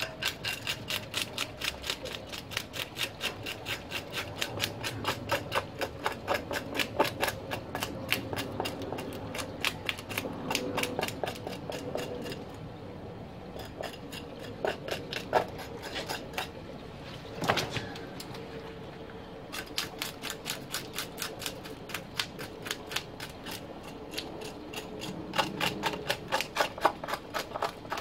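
Scales being scraped off a large wild red sea bream with a wooden-handled blade, in rapid crisp strokes, several a second. The strokes slow to a few scattered scrapes and one sharper knock around the middle, then pick up pace again.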